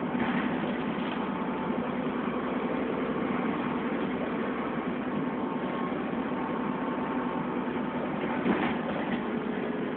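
Dennis Trident double-decker bus engine and running noise heard from the upper deck: a steady drone with faint held tones. A single brief knock or rattle comes about eight and a half seconds in.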